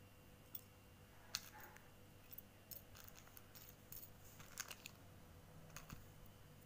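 Light, scattered clicks of plastic press-on fake nails knocking together as a hand takes them out of their packet and spreads them out, over near silence; the sharpest click comes about a second and a half in.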